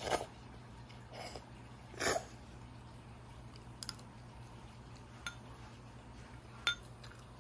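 Child eating sticky natto and rice from a spoon: a few wet mouthfuls in the first two seconds, the loudest about two seconds in, then three light clicks spaced through the rest.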